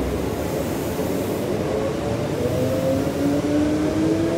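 Electric passenger train pulling away: from about two seconds in, its traction motors whine in several tones that rise steadily in pitch over a steady rushing noise.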